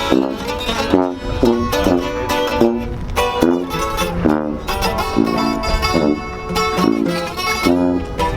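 Background music: an instrumental passage of a Spanish-language corrido, with plucked guitars playing a quick, rhythmic run of notes.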